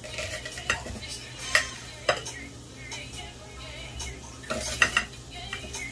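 A spoon stirring in a cooking pot, clinking and scraping against the metal sides in irregular sharp knocks.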